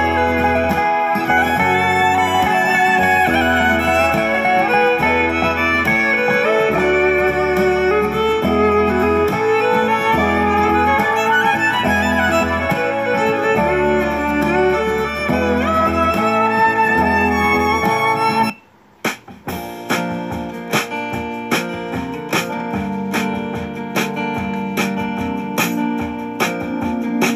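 Instrumental background music with a steady beat. About two-thirds of the way through it breaks off briefly and gives way to a passage of plucked, guitar-like notes.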